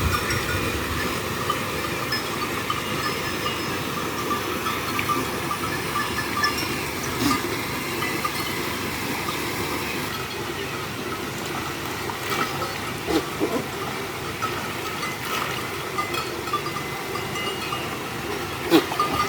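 Flowing river water making a steady rushing hiss, with a few short knocks, the loudest near the end.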